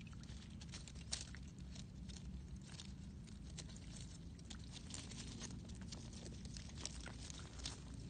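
Faint, irregular crackling and rustling of dead leaves and wet mud as a fish wriggles in a shallow muddy hole, over a low steady rumble.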